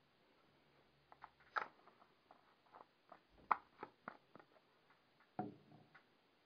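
Faint scattered clicks and taps of a plastic threadlocker bottle being handled over the board's metal hardware, with a duller knock about five seconds in as the bottle is set down on the board.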